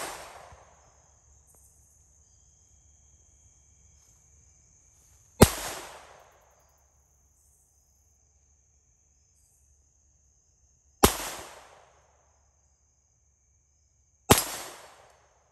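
Three single shots from a Taurus TX-22 .22 LR semi-automatic pistol, spaced a few seconds apart. Each is a sharp crack whose echo fades over about a second, over a steady high-pitched drone, with the tail of an earlier shot dying away at the start.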